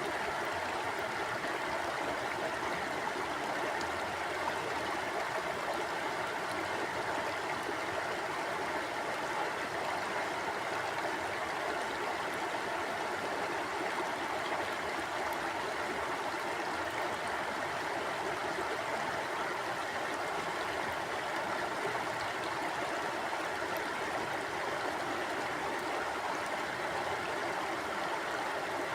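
Mountain stream flowing steadily over rocks, an even rushing and gurgling of water.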